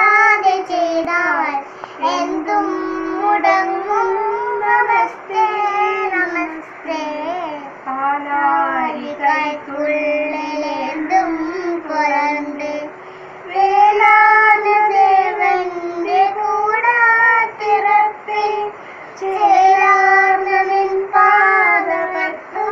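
A young girl chanting a devotional nāmam prayer in a sing-song tune, phrase after phrase with held notes and short breaks for breath.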